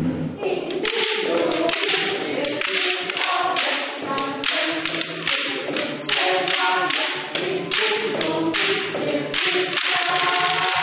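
A group singing together while knocking short wooden sticks against tall wooden poles in a steady rhythm, about two to three knocks a second.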